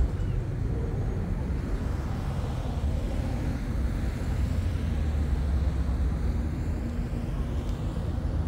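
Steady low rumble of distant motor traffic, with a faint engine hum showing in the second half.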